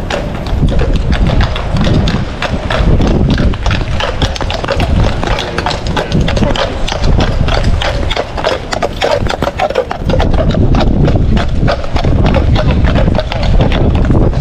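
Hooves of several ridden horses clip-clopping in a steady run of hoofbeats, with heavy rain falling.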